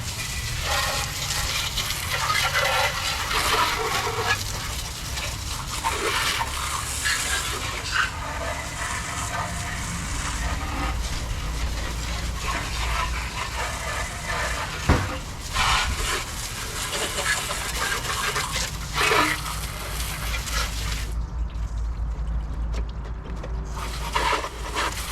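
Water spraying and splashing over the bare engine bay of a car being washed down, an uneven hiss broken by short knocks, with a steady low rumble underneath.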